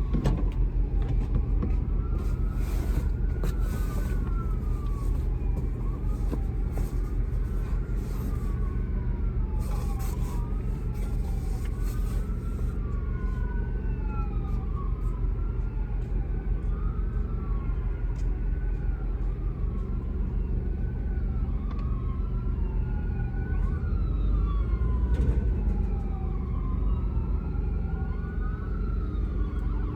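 Emergency vehicle siren wailing, its pitch rising and falling slowly in overlapping sweeps every couple of seconds, over a steady low rumble. Crackly clicks come through in the first twelve seconds or so.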